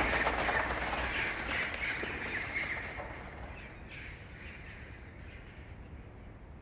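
A flock of birds calling all at once in a dense chatter that fades away over a few seconds.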